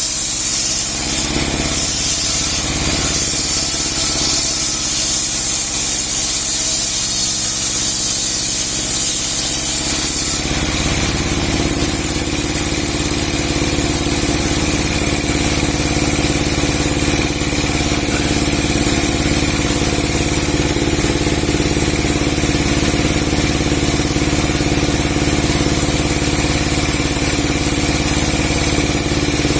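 Large 30 hp log-sawing machine with a 60 cm steel blade running steadily. A loud, high hiss of the blade cutting wood stops abruptly about a third of the way in, leaving the machine's even running hum.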